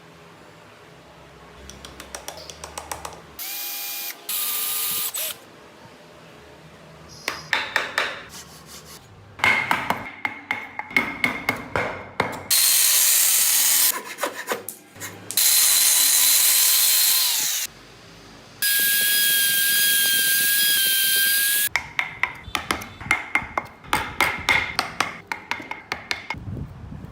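Handheld power tool cutting and sanding wood in several bursts of a few seconds each, each with a steady high whine. Between the bursts come stretches of rapid, uneven scraping and ticking as the wood is worked.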